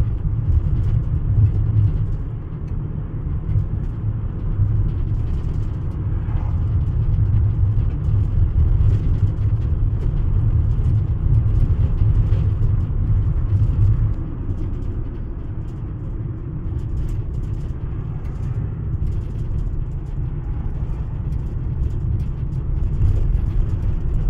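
A car driving along a road, heard from inside the cabin: a steady low rumble of driving noise that eases slightly about halfway through.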